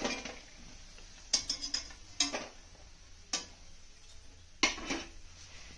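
A metal spoon knocking and clinking against metal cookware a few times, in short clusters with quiet between, as fried pea fritters are lifted out.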